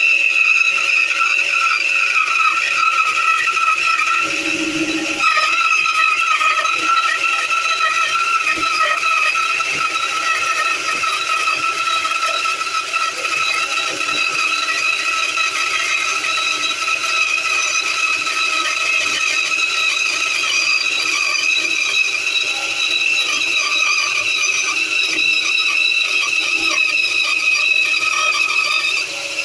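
Titan bandsaw running with a steady high-pitched whine over a noisy rasp, with a brief lower hum about four seconds in.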